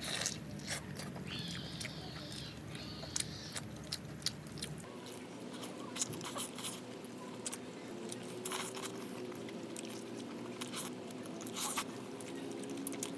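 A person biting into and chewing a piece of soy-sauce-flavoured Korean fried chicken close to the microphone, with irregular short bites and crunches and a pause now and then while the meat is torn apart by hand.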